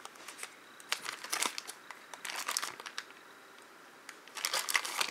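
Plastic shrink wrap crinkling and tearing as it is pulled off a pack of skateboard wheels by hand. It comes in short bursts, goes quiet for about a second past the middle, then crinkles again more densely near the end.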